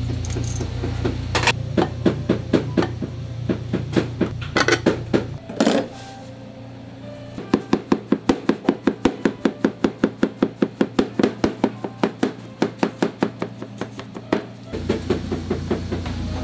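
Kitchen knife chopping a rolled thin egg omelette into fine strips on a board: fast, even knocks about five a second, in two runs with a short pause between them. A steady low hum is heard at the start and near the end.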